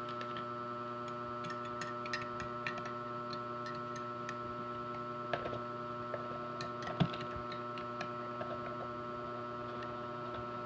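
A steady electrical hum with a few faint clicks and taps, the sharpest about seven seconds in.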